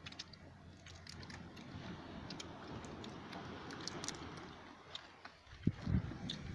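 Small sharp clicks and cracks of fire-roasted crab shells and charred fish being broken and picked apart by hand, with a low thump about six seconds in.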